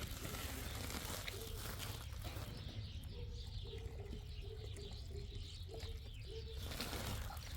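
A dove cooing: a run of short, low, level hoots starting about two and a half seconds in and stopping near the end, over a steady low rumble.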